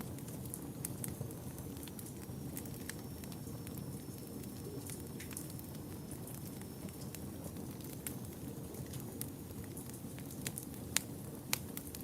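Wood fire burning in a fireplace: a steady low rush with scattered sharp crackles and pops, the two loudest near the end.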